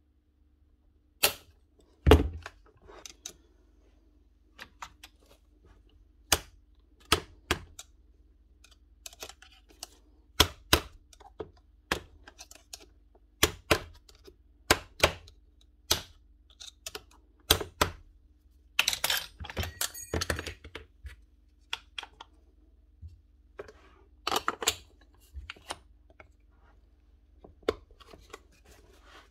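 Scattered sharp clicks, clinks and knocks of hand tools and metal parts being handled on a workbench while the Bosch GBH 8-45 D hammer is reassembled, with a short burst of rapid ticking about two-thirds of the way through.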